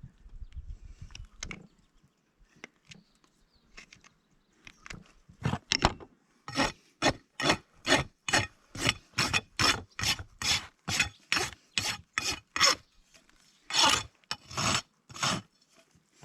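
Farrier's rasp filing a horse's hoof in quick, even strokes, about three a second, after a few seconds of softer scattered scraping, with a short pause before the last few strokes.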